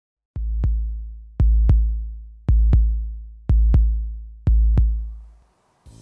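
Background music: a deep bass drum beat struck in pairs, five pairs about a second apart, each pair dying away in a long low boom. The beat stops about five and a half seconds in, and other music begins just before the end.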